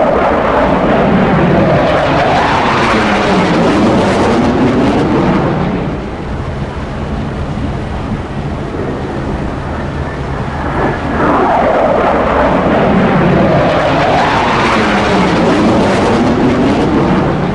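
F-35 jet, powered by a single F135 turbofan, passing low overhead twice. Each pass brings loud jet noise with a swooshing tone that sweeps down and back up: the first in the first six seconds, the second starting about eleven seconds in.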